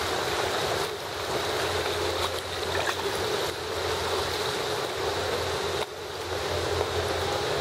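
Indoor swimming pool ambience: a steady wash of water noise from the pool's surface and overflow gutter, over a low hum, easing briefly every couple of seconds.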